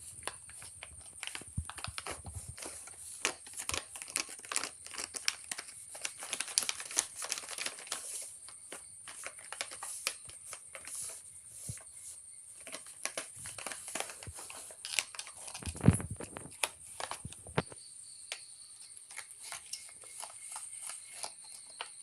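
Plastic cat food packet crinkling and crackling in irregular bursts as kittens paw and bite at it, with one louder knock about sixteen seconds in.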